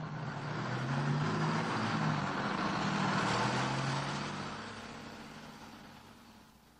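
A bus driving past: a low engine hum and road noise swell up, then fade away over the last few seconds.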